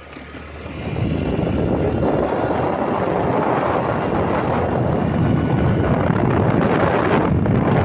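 Wind rushing over the microphone of a camera on a moving vehicle, mixed with road and motor noise; it grows loud about a second in and then holds steady.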